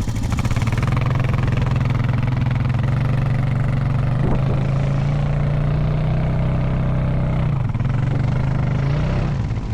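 Honda Foreman 520 ATV's single-cylinder engine held at raised revs under load while pushing a stuck ATV that does not move in soft sand. The revs drop back near the end.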